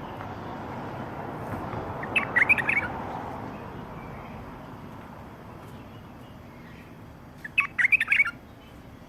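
Bulbul singing two short, loud warbled phrases about five seconds apart, over a steady background noise.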